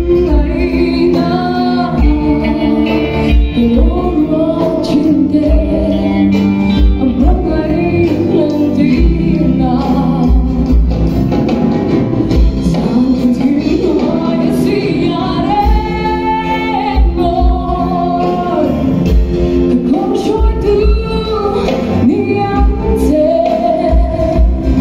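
A live praise band performing a worship song: singing over acoustic and electric guitars, with a drum beat thudding in the low end.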